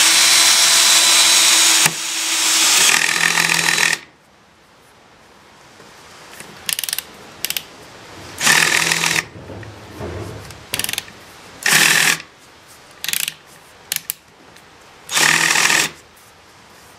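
Ryobi 18V cordless drill in low gear driving a half-inch lag bolt into a 4x6 with no pilot hole. The motor runs steadily under heavy load for about four seconds and then stops. About eight short trigger bursts follow as the drill stalls against the bolt and can drive it no further.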